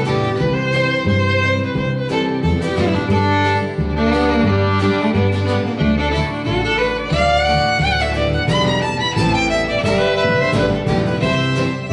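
A live acoustic folk-country band plays an instrumental break with no singing. The fiddle carries the melody over upright bass notes that step along steadily.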